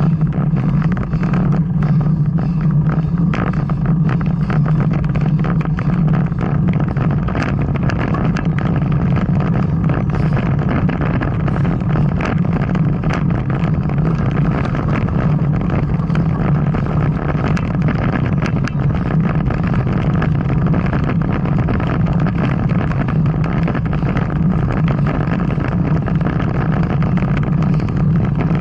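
Steady rumbling ride noise from a bicycle climbing a hill road: wind and tyre noise that stays even throughout.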